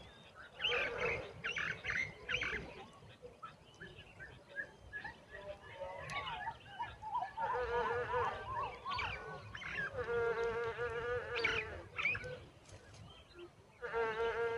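Hungry nestlings begging in the nest: short high chirps in the first few seconds, then several longer, buzzy, steady-pitched calls, each lasting a second or more.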